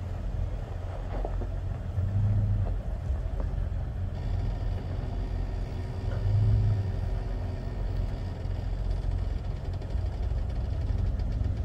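Off-road vehicle's engine running at low speed on a rough dirt trail, rising briefly about two seconds in and again about six seconds in.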